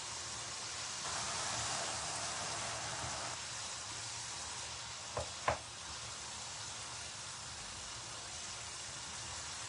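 Yardlong beans and fish cooking in a masala in an open pan, with a steady sizzle. Two short sharp knocks come about five seconds in.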